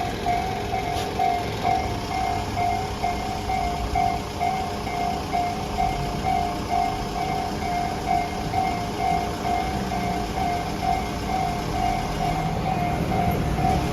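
Japanese railroad crossing warning bell sounding, a single tone striking about twice a second, over a low rumble that grows a little louder near the end.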